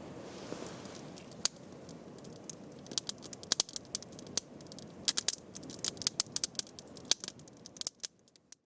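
Wood campfire crackling and popping with irregular sharp snaps over the low rush of the flames. It fades out near the end.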